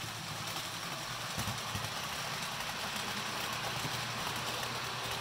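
OO gauge model InterCity 125 train running along the track: a steady hum with an even hiss.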